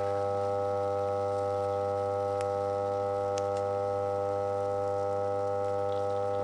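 Dishwasher pump motor on mains power giving a steady electrical hum with many overtones, its overheated, glowing windings still not burnt through; a couple of faint ticks come through it.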